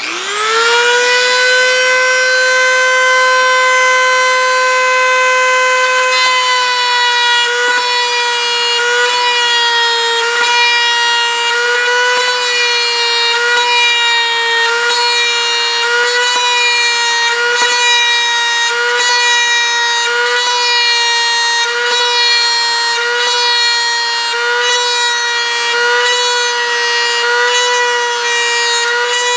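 Dremel rotary tool spinning a brass tube, whirring up to speed at the start and then running at a steady high-pitched whine. From about six seconds in, the pitch dips slightly about once a second as the spinning tube is pressed lightly onto the model's skin to cut each rivet.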